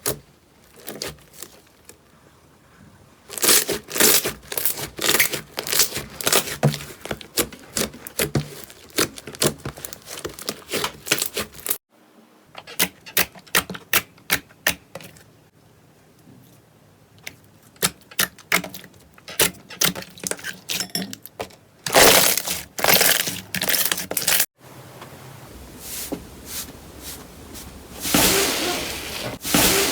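Slime being squeezed and poked by hand, giving quick runs of crackling and popping clicks. The sound breaks off abruptly twice, about 12 and 24 seconds in, as one clip gives way to the next.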